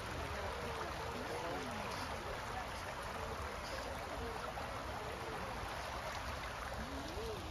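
Outdoor park ambience: a steady rushing noise with faint, distant voices of people on the lawn.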